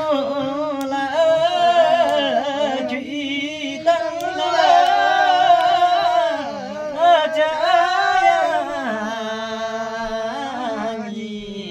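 A man singing a Karmarong folk song unaccompanied, in long drawn-out, wavering notes. A little past two-thirds of the way through, his voice drops lower and holds a steady note.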